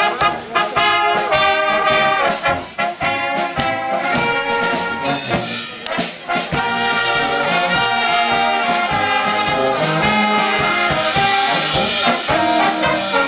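Live brass band playing: trumpets and trombones carry the melody over tuba and a steady drum beat.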